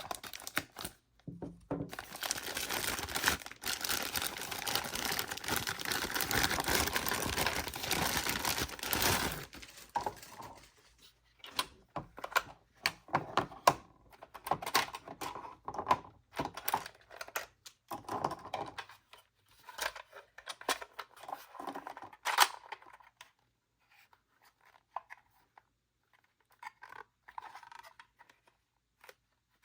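Toy packaging being opened: a continuous tearing and ripping for about seven seconds, then scattered clicks, taps and crinkles as plastic parts and wrapping are handled.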